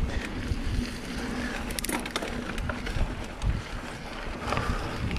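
Mountain bike rolling fast over a dirt singletrack: a steady low rumble of wind and tyres on the microphone, with the bike's rattles and clicks over the bumps and a sharper cluster of knocks about two seconds in.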